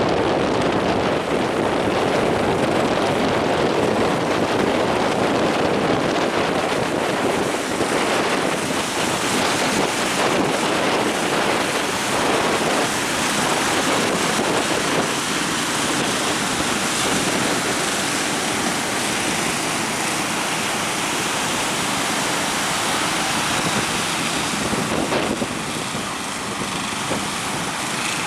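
Strong wind buffeting the microphone over the steady rush of sea waves breaking.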